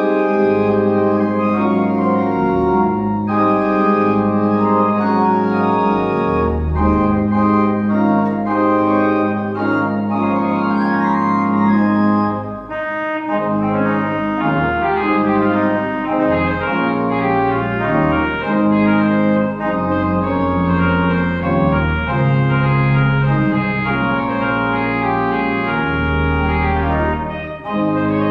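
Pipe organ playing full sustained chords over a deep pedal bass, starting abruptly and then continuing through a slow succession of chord changes.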